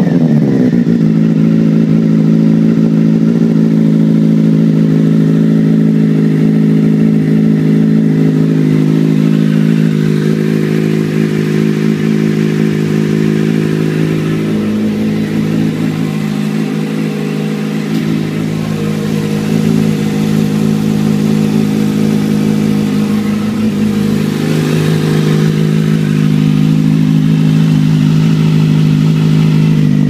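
Kawasaki Z800's inline-four engine idling steadily through a newly fitted Ixil twin-outlet slip-on exhaust.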